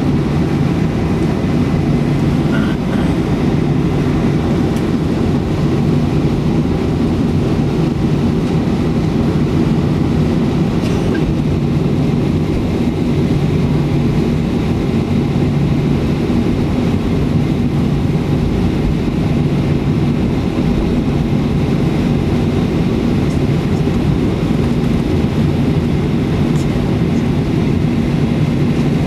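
Cabin noise of a Boeing 737-300 taxiing, heard from inside: the engines running at idle as a steady low drone with a few held low tones.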